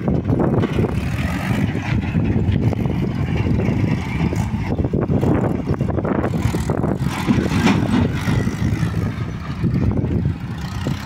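Diesel farm tractor engine running under load as it pulls a heavily loaded trolley over a dirt track.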